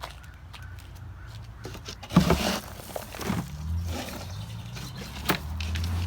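Knocks and scrapes of potatoes and soil being handled and sorted, the loudest about two seconds in, with a low steady hum building underneath from about halfway.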